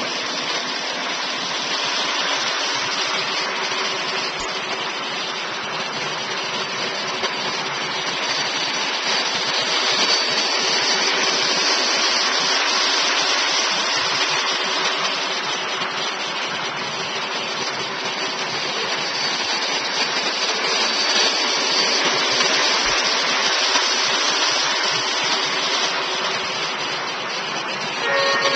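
Lionel model freight train running on the layout: a steady rolling hiss and rumble of the wheels on the track and the locomotives' sound, swelling a little midway.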